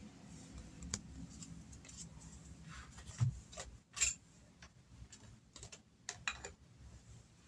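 Cards being handled: irregular light clicks and soft rustles, with a low thump a little over three seconds in and a sharper click about four seconds in.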